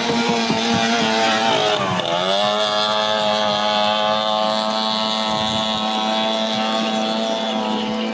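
A 15 hp outboard motor on a racing longboat running with a steady pitched engine note that dips briefly and recovers about two seconds in.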